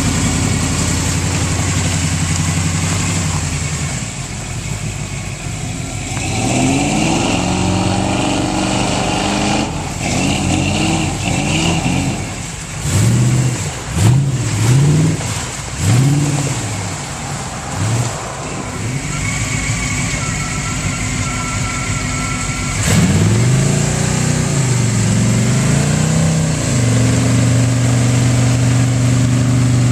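4x4 truck engine running under load off-road, revved up and down several times in quick succession about halfway through and again later, then settling to a steady drone near the end.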